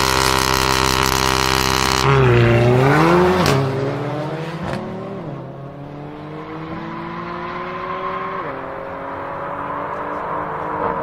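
Mercedes-AMG CLA45's turbocharged four-cylinder engine held at high revs on the start line, then launching about two seconds in, the revs dipping and climbing again. It then pulls through several upshifts, each a rising note that drops sharply at the shift, and fades as the car speeds away.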